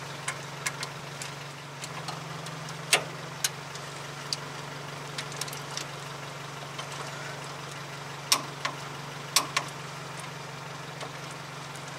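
Scattered sharp metallic clicks and clinks of a socket wrench working a front suspension stud nut, the loudest about three seconds in and twice near eight and nine seconds, over a steady low hum.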